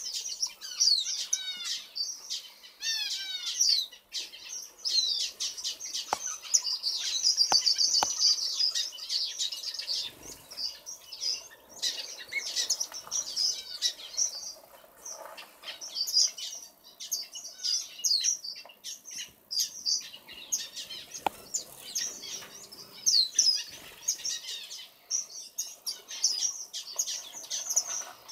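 A mixed aviary flock of small estrildid finches and waxbills chirping and twittering continuously in high, quick calls, some in short falling series.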